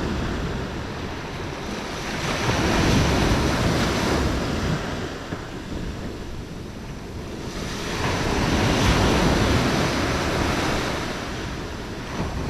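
Ocean surf: waves breaking and washing in, swelling twice, with wind on the microphone.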